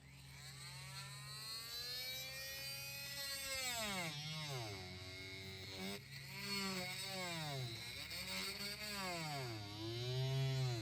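Oscillating multi-tool with a vibrating blade cutting along wooden window trim, its motor pitch sagging and recovering again and again as the blade is pushed into the wood and eased off.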